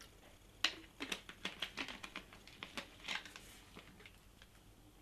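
A quick, irregular series of light clicks and taps, about a dozen over three seconds: drink bottles and cocktail-making gear being handled.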